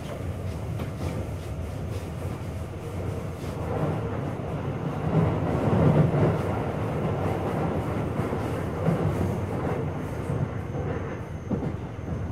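Running noise heard inside a Keio new 5000 series electric train car in motion: a steady rumble of wheels on rail with scattered clicks over rail joints, swelling about six seconds in. The uploader notes a slight wheel-flat knock from this car throughout the run.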